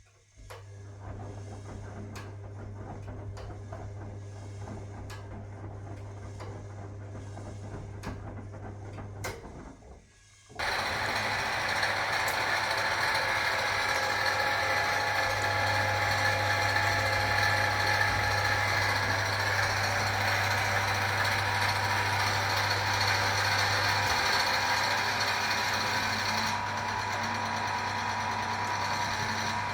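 A 1961 AEG Lavamat Noris washing machine running its programme. For about ten seconds there is a steady motor hum with regular clicks. Then, after a short break, a much louder, rough mechanical running starts and keeps going.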